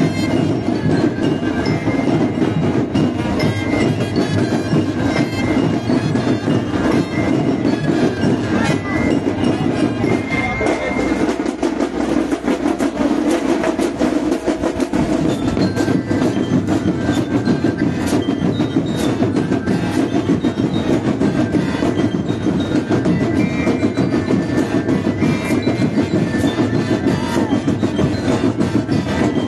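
Independent marching band playing on the march: massed drums keep up a fast, continuous, rattling beat, with short high notes sounding over them now and then.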